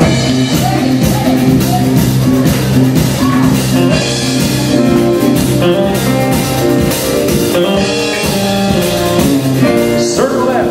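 Country band playing the instrumental intro to a square-dance singing call: guitar over a drum kit beat, starting abruptly.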